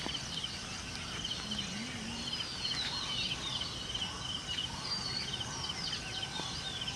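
Dusk countryside ambience: insects chirring in a steady high pulsing drone, with birds chirping over it.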